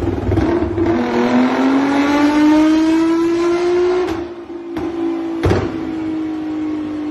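Nissan GT-R R35's twin-turbo V6 through its stock exhaust, accelerating: the engine note climbs steadily for about three seconds, then holds and eases slightly. A few sharp cracks break it near the middle.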